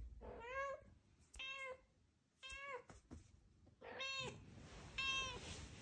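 A Scottish Straight cat meowing five times, short rising-and-falling meows about one a second, as she brings back her ball and asks for it to be thrown again.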